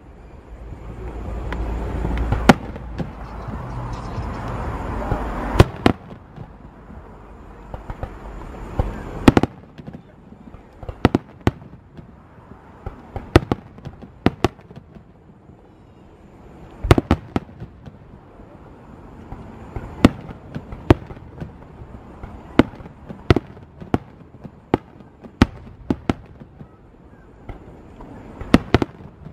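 Aerial fireworks shells bursting overhead: a long run of sharp bangs, some in quick clusters, with a steady rush of noise under them for the first nine seconds or so.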